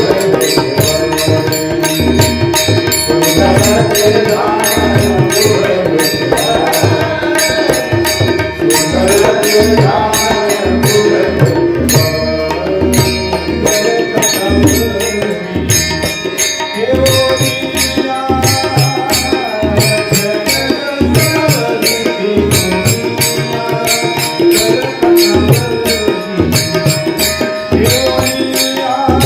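A male voice singing a Warkari devotional melody, with tabla accompaniment keeping a steady rhythm.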